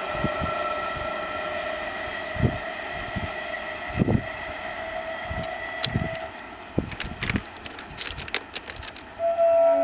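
EMU electric local train running away down the track, its steady whine fading over the first few seconds, with scattered low thumps and a run of sharp clicks. About nine seconds in, a loud steady horn starts.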